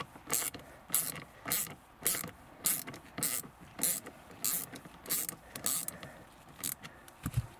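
Hand ratchet with a socket extension undoing a 6 mm bolt that holds a heater matrix in place, its pawl clicking on each back-swing in a steady rhythm of nearly two strokes a second. A dull thump comes near the end.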